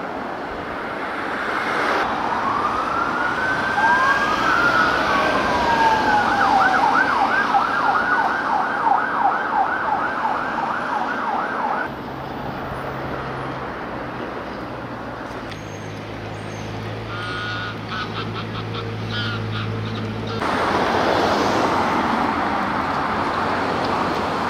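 A police siren sounding in a slow rising and falling wail, switching to a fast yelp about seven seconds in and cutting off suddenly, followed by a low steady hum and then road traffic.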